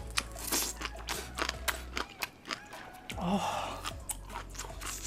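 A person chewing and biting into crunchy food close to the microphone, a rapid irregular series of crisp crunches, with a short breathy noise a little after three seconds in.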